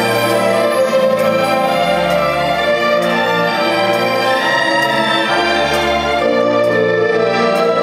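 Orchestral music with bowed strings to the fore, playing held chords that change every second or two.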